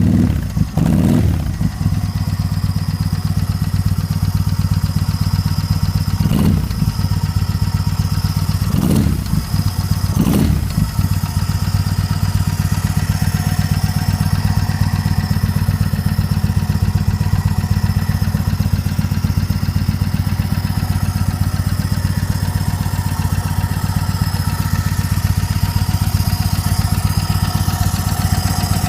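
Motorcycle engine running at a steady idle, with a few brief surges in the first ten seconds or so.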